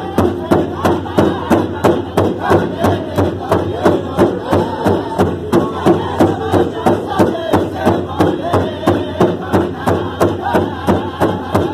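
Powwow drum group beating a big drum together in a steady, fast beat of about three to four strikes a second while singing in unison in high voices.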